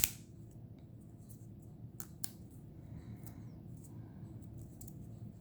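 Tarot cards being handled: a few short, soft clicks of card stock as cards are flipped and set down, over low room hum.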